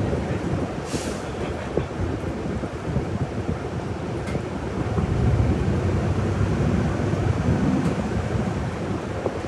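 City bus running, engine and road noise heard inside the cabin from the rear seats as a steady low rumble. It swells a little about halfway through, and there is a brief click about a second in.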